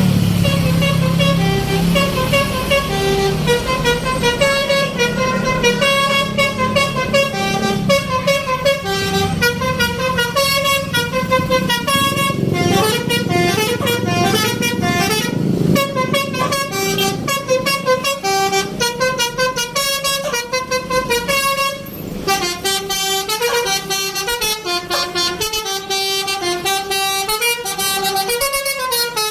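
Bus 'telolet' horn: a multi-tone air horn played by its controller as a quick melody of short notes stepping up and down in pitch, sounding almost without a break. The bus engine's low rumble is under it for the first few seconds.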